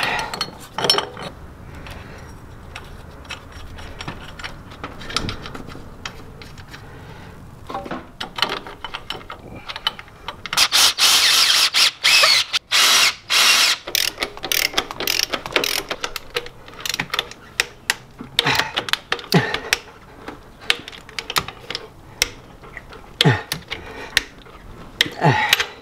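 Socket ratchet clicking in quick runs as bolts are run into a new transmission mount bracket. About ten seconds in, a cordless power driver spins a bolt in for about three seconds, the loudest sound here.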